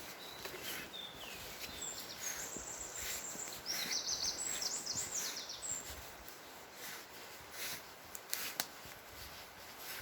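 Songbirds singing in a forest: high, quick chirping and warbling phrases, busiest and loudest around the middle, over a steady outdoor hiss. Scattered soft clicks, with two sharp knocks near the end.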